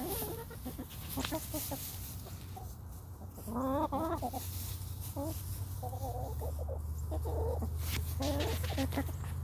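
Backyard hens clucking while foraging in straw, with one louder call that wavers in pitch about four seconds in and several shorter clucks after it. A steady low rumble runs underneath and grows louder past the middle.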